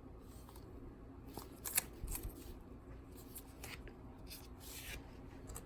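Trading cards being handled: faint rustling with a few light ticks and scrapes as cards are taken out and moved.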